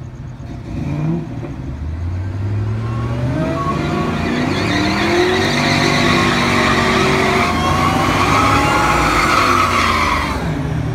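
A modified 1999 Ford Lightning pickup, with its supercharged 5.4-litre V8, and a modified 1991 Fox-body Mustang accelerating hard side by side in a drag race. The engine pitch climbs and grows louder, then eases off near the end.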